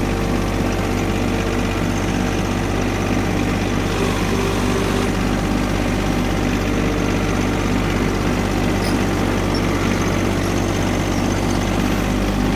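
John Deere compact tractor's diesel engine running steadily at an even speed as the tractor drives, heard up close from the operator's seat.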